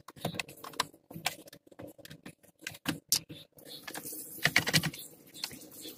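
Hard plastic dashboard trim around a Suzuki Mehran's instrument cluster being handled and worked loose, giving irregular clicks and taps, with a louder cluster of knocks about four and a half seconds in.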